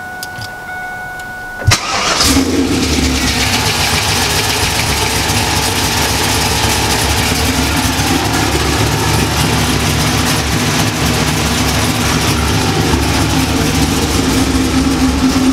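1998 Pontiac Trans Am's LS1 V8 started up after a short steady tone: a click, brief cranking, and it catches about two seconds in, then idles steadily. This is the first start after a fresh oil change, with oil pressure building.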